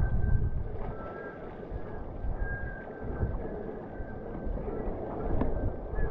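Wind buffeting the camera microphone and water rushing past as a wing-foil board flies on its hydrofoil over choppy sea, with a thin high whistle that comes and goes.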